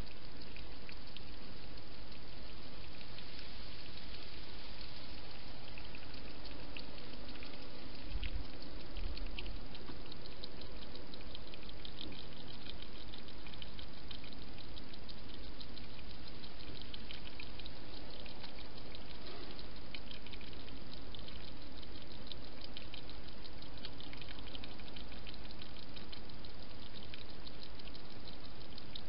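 Wild hedgehog feeding at a shallow dish: a long run of small rapid clicks from its mouth at the dish, over a steady hiss, with a couple of low bumps about eight to nine seconds in.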